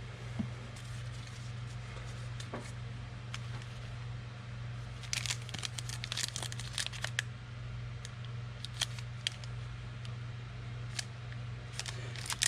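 Foil trading-card pack wrappers being torn open and crinkled by hand, in scattered crackling bursts over a steady low hum.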